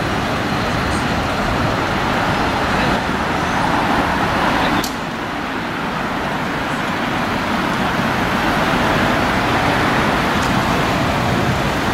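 Steady street traffic noise from passing road vehicles, with one sharp click about five seconds in.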